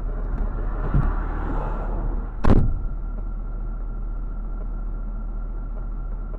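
Steady engine and road noise heard inside a moving car's cabin, with one sharp knock about two and a half seconds in, followed by a faint steady high tone.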